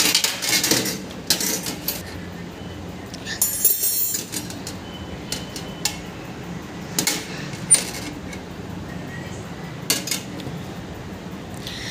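Metal rotisserie spit, prongs and wire holder clinking and knocking against one another and against an enamelled metal baking tray as they are handled, in scattered separate clicks with a brief scrape about three and a half seconds in.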